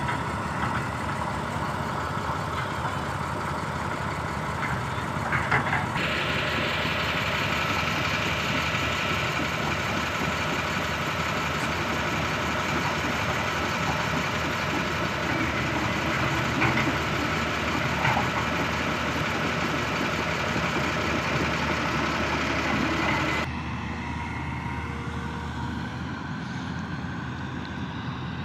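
Diesel engines of a wheel loader and a crawler excavator running steadily. The sound shifts abruptly louder about six seconds in and drops quieter near the end.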